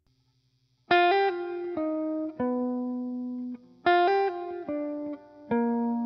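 Background music of plucked guitar notes: a short melodic phrase begins about a second in and is played again about three seconds later, each note starting sharply and fading.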